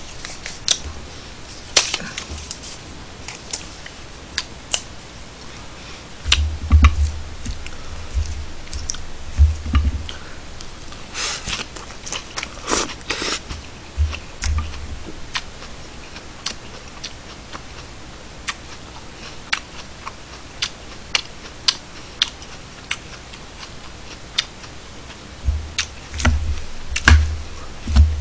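Metal spoon and chopsticks clinking and scraping irregularly against a ceramic bowl while eating, with scattered dull low thumps from the table.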